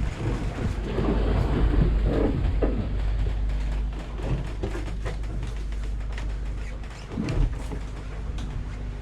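Wind buffeting the microphone in uneven low rumbles over the steady hum of the yacht's generator, which is running to charge the flat batteries, with a few knocks and clatters.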